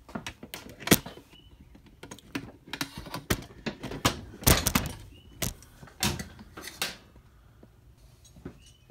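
Wrenches and metal fittings clinking and knocking as they are handled on a workbench: an irregular string of sharp clicks and clunks, busiest around the middle.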